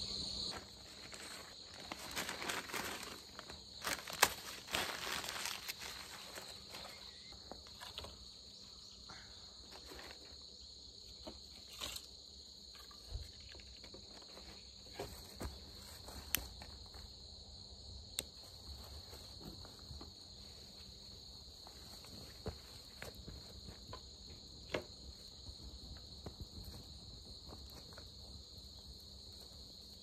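Insects trilling steadily in a high pitch, with scattered rustles, light knocks and footsteps as paper and wood are handled to lay a fire.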